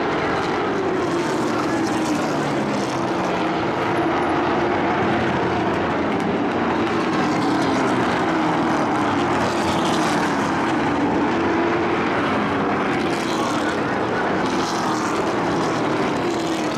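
Several race trucks' engines running together at low, steady revs as the trucks circle the oval slowly. The result is a continuous drone whose pitch slowly wavers up and down.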